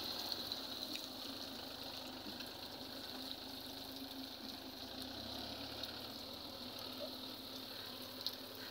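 Faint, steady running of a Mahindra tractor's diesel engine, with a constant low hum and a few small ticks.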